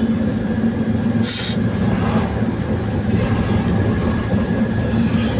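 Steady engine and road rumble heard from inside the cabin of a moving vehicle cruising on asphalt, with a brief hiss about a second in.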